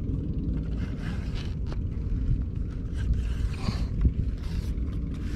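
Wind rumbling on an action camera's microphone: a steady, unpitched low rumble with faint scattered ticks from the handled fishing pole.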